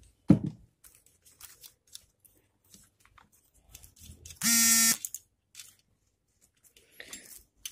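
Faint clicks and taps of hands and pliers working the nut and shaft of a refrigerator thermostat on its metal bracket. Near the middle comes one loud, steady buzz lasting about half a second.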